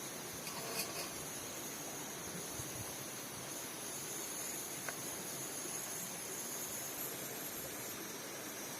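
Steady forest ambience: an even hiss with a continuous high-pitched insect chorus over it, and faint short clicks about a second in and again about five seconds in.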